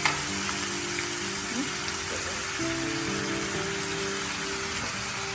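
Food sizzling in a hot pan, a steady hiss under background music with long held notes.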